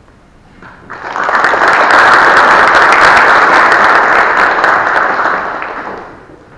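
Audience applauding in a large hall. The clapping swells in about a second in, holds steady, then dies away near the end.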